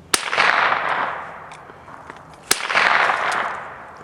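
Two pistol shots about two and a half seconds apart, each with a long echo rolling off after the crack.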